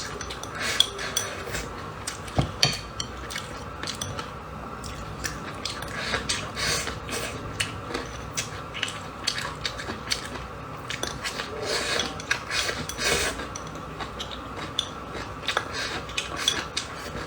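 Eating sounds: eating utensils clicking and scraping against a bowl or plate in many short, irregular taps, along with chewing.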